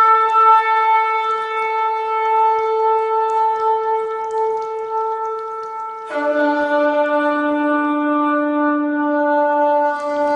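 Shofar (ram's horn) blown in long held blasts: one sustained note fades, and about six seconds in a new, lower blast starts abruptly and holds.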